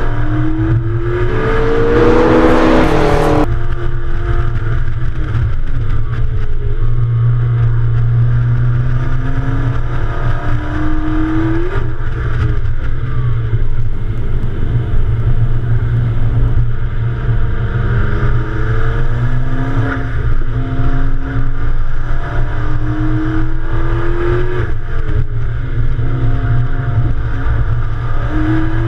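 Sports car engine driven hard: revs climb through gear after gear, drop back at each shift and lift, then climb again, over a steady low drone. A rushing hiss lasts about two seconds near the start.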